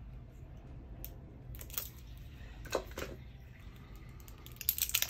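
Poker-style game chips clicking as they are handled and set down: a few single clicks, then a quick run of clicks near the end.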